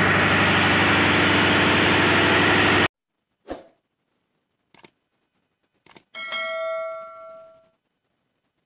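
Cummins KTA38-M marine diesel running steadily in a tugboat engine room, cut off abruptly about three seconds in. Subscribe-animation sound effects follow: a short swoosh, small mouse clicks, then a ringing notification-bell chime that fades out.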